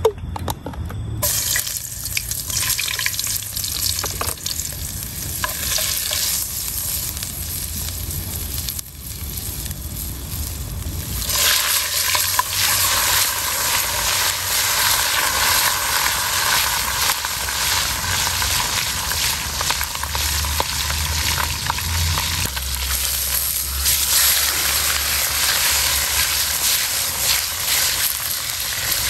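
Hot oil sizzling in a wok over an open fire. It gets much louder about eleven seconds in as a whole bream goes into the oil, then keeps up a steady frying hiss.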